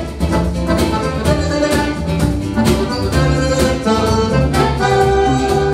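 Live music from a small band: accordion playing sustained chords over cajón beats.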